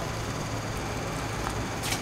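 Steady mechanical hum and hiss of a working restaurant kitchen, with a light click near the end.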